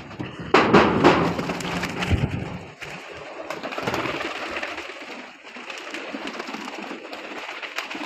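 Metal loft door clattering as it is opened, loudest about a second in, followed by fancy pigeons' wings flapping as they fly out, with pigeons cooing.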